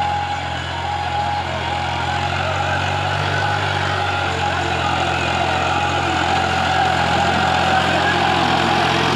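Massey Ferguson 260 tractor's three-cylinder diesel engine working steadily under load while it pulls a cultivator, growing gradually louder as it comes closer.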